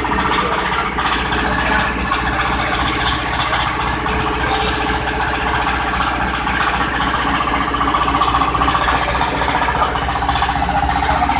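Palm sugar grinding machine running steadily, a continuous motor-driven hum and whirr with a fast, even ripple.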